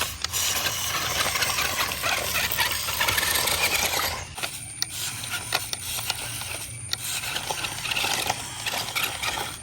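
1/18-scale RC rock crawler driving over rough ground: its small electric motor and gears whining while the tyres and chassis scrape and rattle over stones and dirt, with brief let-ups about four and a half and seven seconds in.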